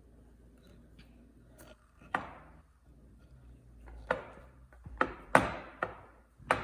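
A spoon stirring thick sugar and corn syrup in a mixing bowl, knocking sharply against the bowl five times, loudest about five and a half seconds in.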